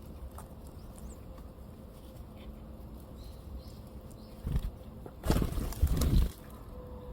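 Wings of small wild birds flapping close to the microphone: a short flutter about four and a half seconds in, then a longer one lasting about a second.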